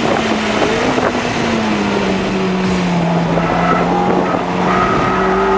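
Ferrari F430's V8 engine running hard, its note sinking slowly through the middle and climbing again toward the end.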